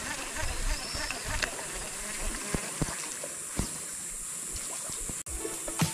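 Outdoor riverside ambience: a steady high-pitched insect drone over a hiss of water, with scattered light knocks and low rumbles. Near the end the sound drops out for an instant.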